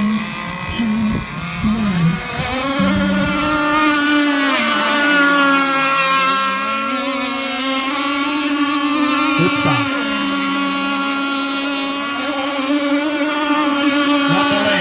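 Radio-controlled model powerboat running at high speed: a high, steady motor whine that wavers slightly in pitch. Wind buffets the microphone for the first few seconds.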